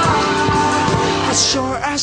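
Background music: a song, with a voice holding a long note.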